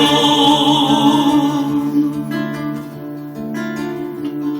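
Acoustic guitar music strummed and plucked in an instrumental passage between sung verses, with a held sung note trailing off in the first second or so.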